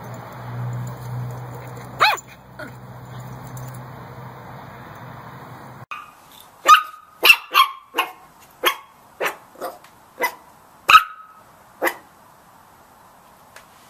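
Puppies barking. One short bark comes about two seconds in over a steady low background hum. The hum stops suddenly near six seconds, then a run of about ten short, high, yappy barks follows, roughly two a second, ending about twelve seconds in.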